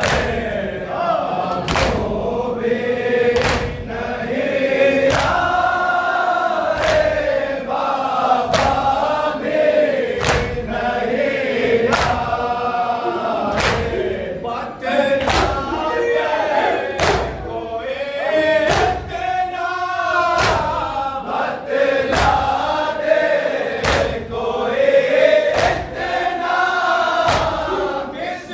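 Men's voices chanting a nauha, a Shia lament for Muharram and Safar, in unison at full voice. Sharp slaps of matam, hands beaten on chests together, land about once a second and keep the beat.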